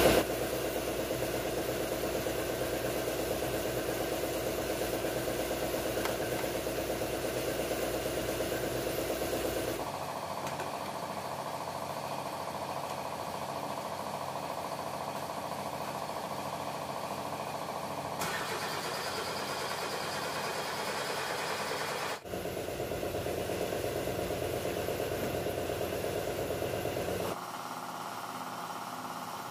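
Steady machinery running, in stretches that change tone abruptly several times.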